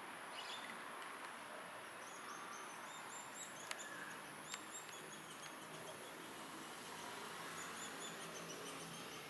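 High-pitched chirps from Sunda pygmy woodpeckers at the nest, repeated in short runs. A steady high hiss runs underneath. Two sharp taps come near the middle.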